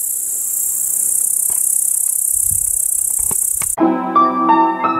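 Steady high-pitched chirring of meadow insects in tall grass, cut off suddenly about three and a half seconds in by piano music.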